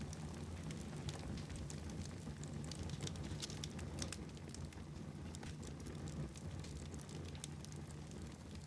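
Wood fire burning in a fireplace, with frequent small pops and crackles over a steady low rumble.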